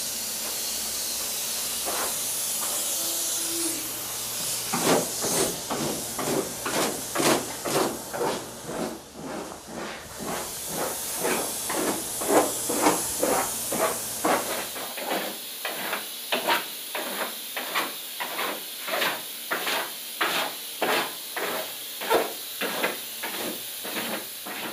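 Spray foam insulation gun spraying with a steady hiss. From about four seconds in, sharp regular pulses come about twice a second, and the hiss fades out after about fifteen seconds.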